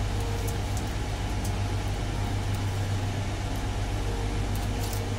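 Steady low hum with an even hiss over it, and a few faint ticks.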